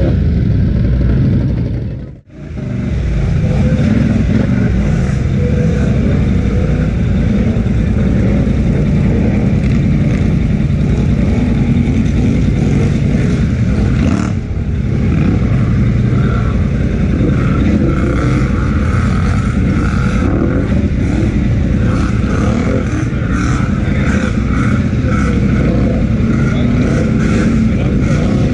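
Polaris Sportsman 1000XP ATV's twin-cylinder engine running steadily under way. The sound briefly cuts out about two seconds in.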